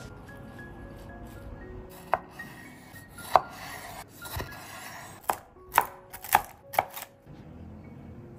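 Chef's knife halving cherry tomatoes on a wooden cutting board: six sharp knocks of the blade meeting the board, the last four about half a second apart.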